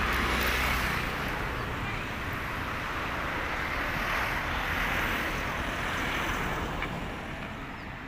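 Wind buffeting the microphone mixed with passing car traffic: a steady rushing noise that swells twice.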